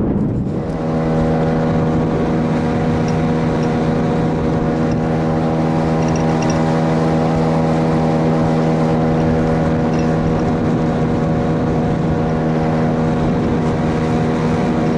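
Outboard boat motor running steadily at one constant pitch, rising to speed in the first second.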